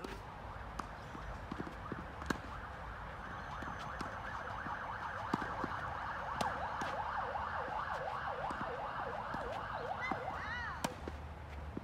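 A distant emergency-vehicle siren in a fast rise-and-fall yelp that swells over the first few seconds and fades near the end. Tennis balls pop off racquets now and then.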